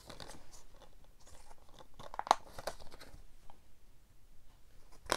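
A Blu-ray being handled: a cardboard slipcover rubbing and a clear plastic Blu-ray case being opened, faint crackles with a few sharper clicks a little past two seconds in.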